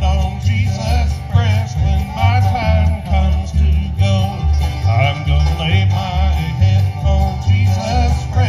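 Bluegrass band playing, with banjo and guitar over a steady, evenly pulsing bass beat.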